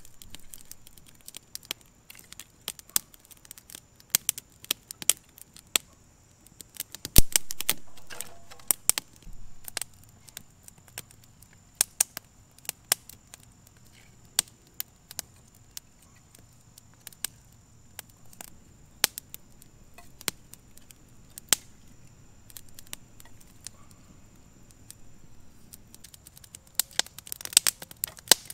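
Wood kindling fire crackling and popping with sharp, irregular snaps. There is one louder knock about seven seconds in, and the snaps come thicker near the end as the fire builds.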